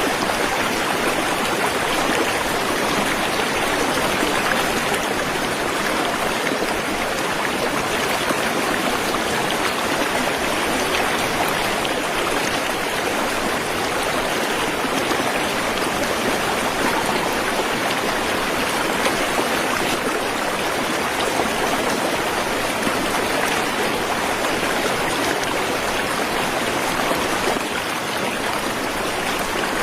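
Waterfall: a steady, even rush of falling water with no change throughout.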